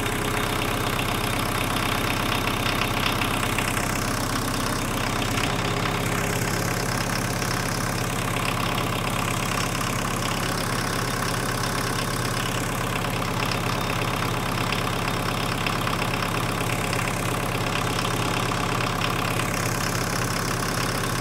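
Mk1 VW Rabbit's turbocharged 1.6 diesel four-cylinder idling steadily at about 1,030 rpm.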